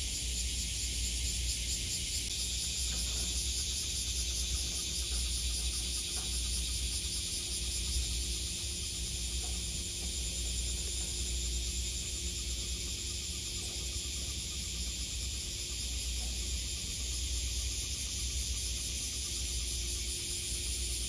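Outdoor harbour-side ambience: a steady high-pitched hiss over a low rumble, with a faint steady hum underneath.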